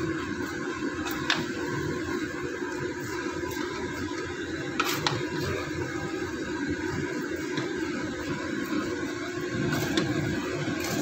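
Wooden spatula stirring and scraping a sticky rice and jackfruit mixture (biko) in a pan, with a few sharp knocks of the spatula against the pan about a second in, around five seconds in and near the end, over a steady hum.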